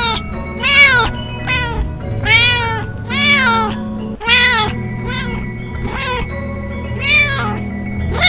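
A mock emergency-alert alarm made of cat meows, repeated roughly once a second. Each meow rises and falls in pitch, and they sound over steady held background tones.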